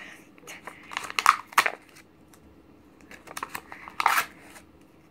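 Crinkling and rustling of packaging being handled, in two short bursts: about a second in and again around four seconds.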